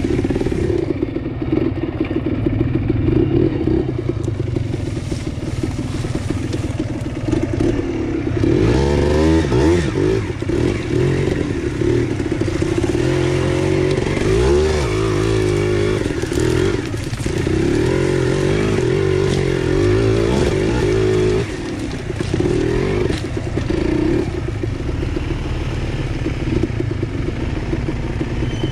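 ATV engine running under changing throttle, revving up and down several times.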